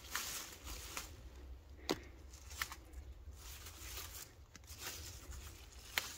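Faint rustling of garden vines and leaves being handled while fruit is picked, with a few sharp clicks, the clearest about two seconds in and near the end.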